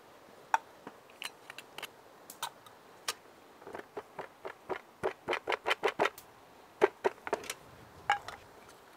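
Clicks and taps of small tuna tins being emptied into a metal billy can, with a quick run of about five taps a second around the middle. Near the end there are a couple more knocks as the tins are set down on a wooden bench.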